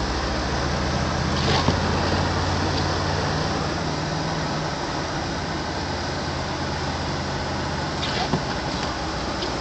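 Car defroster fan blowing loudly inside the cabin of a Subaru Outback, over the low steady running of its 2.5-litre boxer engine as it drives through deep snow. Two sharp knocks sound, about one and a half seconds in and again near the end.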